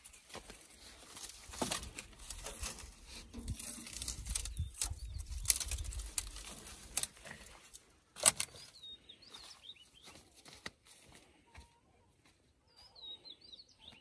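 Dry twigs and branches crackling and snapping as they are gathered and pushed against a pickup's tyre, with a loud sharp snap about eight seconds in. Birds chirp briefly after that and again near the end.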